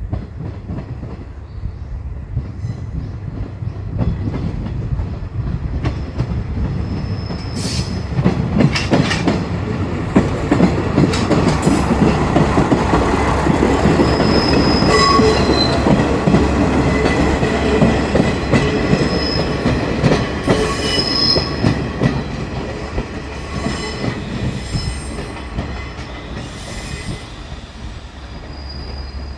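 Two-car sightseeing trolley train with a KiHa 185 diesel railcar rolling slowly by over station pointwork: diesel engine rumbling, wheels clacking over joints and squealing at high pitch. It grows louder over the first several seconds, is loudest in the middle, and eases off near the end.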